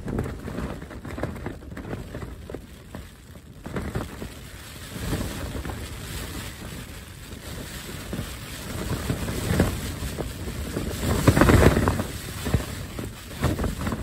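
Strong wind gusting against a Cloud Peak 2 tent, its fabric buffeting and flapping, with wind rumble on the microphone. The gusts come and go, and the strongest comes near the end.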